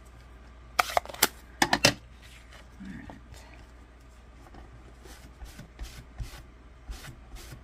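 Card-making supplies being handled: a quick cluster of sharp clicks and taps about a second in as a stamp ink pad is moved, then faint rubbing and light ticks near the end as a cloth wipes the stamping mat.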